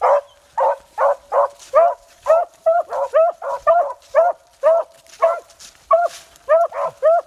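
Beagles baying, a steady run of short, pitched barks about two a second that begins abruptly, with calls sometimes overlapping. The hounds are giving tongue on a rabbit's scent line.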